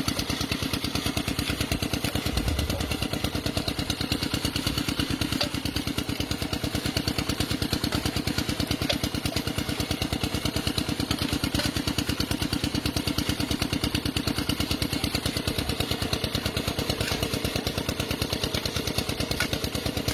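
A small engine running steadily with a fast, even chug.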